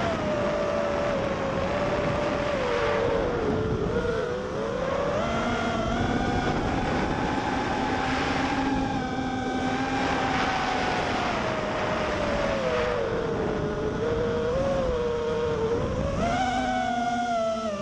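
FPV quadcopter's brushless motors whining, the pitch rising and falling with the throttle, over a rushing noise of wind and prop wash.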